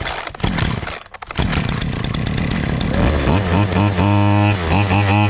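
Zitto two-stroke chainsaw engine running after its broken fuel lines were repaired: uneven for the first second or so, then revved up and held at high speed, dropping briefly and revving again near the end.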